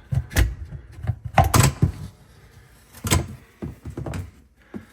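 Plastic knocks and clunks from a Bosch 800 series dishwasher spray part being pulled out of its brackets inside the tub: a few separate hard knocks, the loudest about one and a half seconds in and again about three seconds in.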